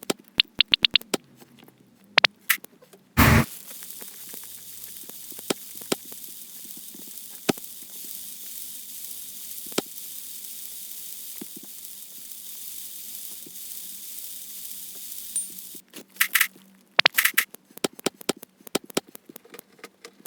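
Food frying in a pan: a steady sizzle with scattered crackles that starts after a loud burst about three seconds in and stops around sixteen seconds. Sharp clicks and clinks of kitchen utensils come before and after it.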